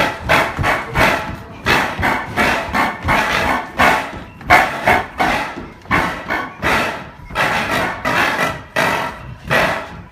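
Rapid, uneven percussive clattering, several strokes a second without a break.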